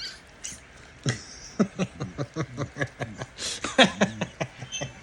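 A person laughing: a string of quick, short laughs that starts about a second in.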